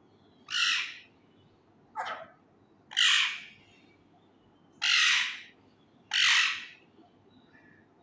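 Male Indian ringneck parakeet giving five loud, harsh, screeching calls, each about half a second long and one to two seconds apart.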